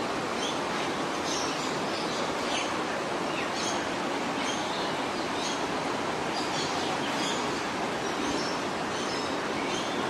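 Many aviary birds chirping and calling in short high notes, several a second, over a steady rushing background noise.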